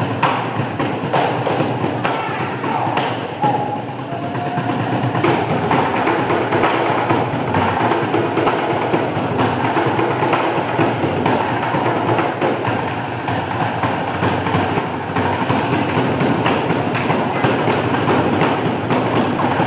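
Drumsticks beating on upright plastic trash bins: three drummers playing a fast, dense percussion routine of close-spaced strikes.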